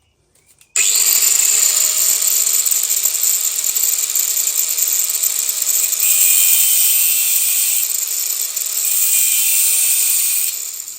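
An electric grinder grinding metal steadily, most likely on one of the cracked exhaust flanges. It starts abruptly about a second in and winds down just before the end.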